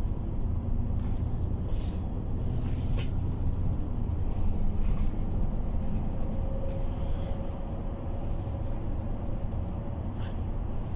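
MAN Lion's City Ü A20 bus heard from inside the passenger cabin while driving: a steady low rumble of engine and road, with a few brief rattles early on and a faint whine in the second half.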